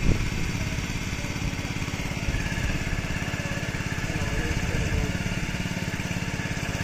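A small engine running steadily with an even, rapid pulse, with a brief thud right at the start.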